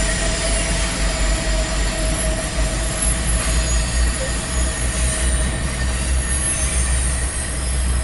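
Norfolk Southern intermodal freight train's cars rolling past, a steady rumble with a thin, steady wheel squeal that fades out about halfway through.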